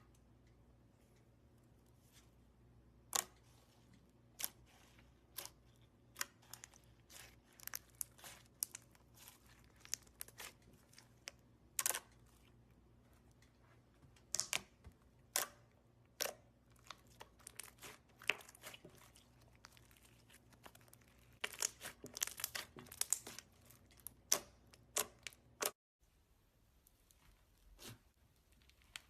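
Slime being handled, giving scattered sharp pops and crackles one after another, with a denser run of crackling about three quarters of the way through.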